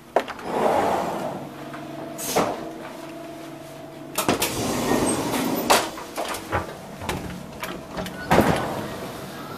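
Automatic sliding door between the carriages of a Swiss InterRegio train opening with a short whoosh, followed by footsteps, knocks and rattles in the gangway between the cars. Another door whooshes open about eight and a half seconds in.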